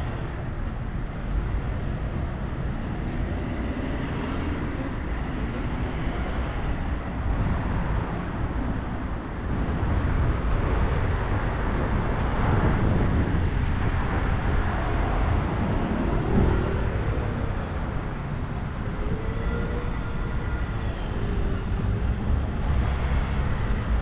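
Road traffic on a busy city street: cars passing steadily, with a continuous rumble of engines and tyres that grows louder for several seconds around the middle.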